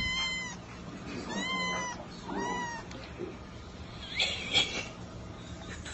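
Ginger kitten meowing three times in short, high-pitched mews about a second apart, then a brief higher squeal about four seconds in.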